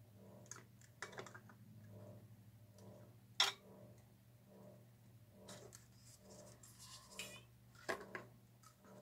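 Plastic paint cups and tools being handled on a cluttered painting table: scattered light clicks and knocks with some scraping, the sharpest knock about three and a half seconds in.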